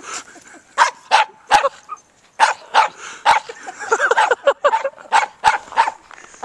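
Small dogs barking and yipping in play as they wrestle in the snow: a quick run of about a dozen short, sharp, high barks with brief gaps between them.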